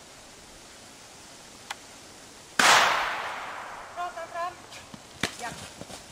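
A single loud gunshot about two and a half seconds in, with a long echo dying away over the next second or so. This is the kind of shot fired in the gunfire part of a dog temperament (MH) test to check the dog's reaction to the bang. Short voice sounds follow about a second later, then a sharp click.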